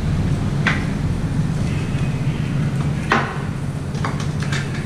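Sharp plastic clicks and knocks of a tank bag being fitted and buckled onto a motorcycle's fuel tank, a handful of them with the loudest about three seconds in, over a steady low rumble.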